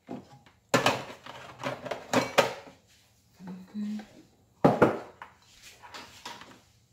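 Clear plastic steamer basket being handled and set onto an electric food steamer's base: a few hard plastic clacks and knocks, the loudest about five seconds in.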